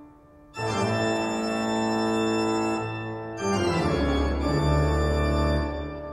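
Organ music playing long held chords that change every second or few, fading near the end.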